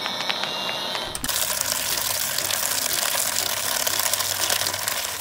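Brief electronic intro effects of tones and clicks, then from about a second in a steady stream of water pouring and splashing into a plastic basin of cockles as they are rinsed.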